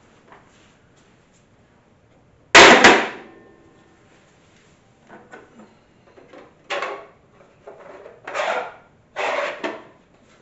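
A box hitting a hard tile floor with one loud clatter and a brief ringing tail, about two and a half seconds in. It is followed by several shorter scraping and rattling handling sounds.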